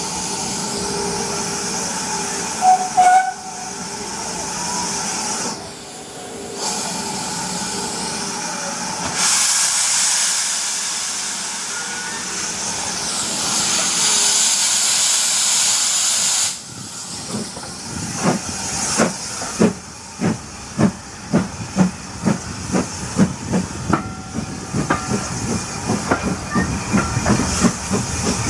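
Steam locomotive standing with a steady hiss of escaping steam, with a brief whistle about three seconds in. From about seventeen seconds in it pulls away, its exhaust beats starting slowly and quickening to about three a second.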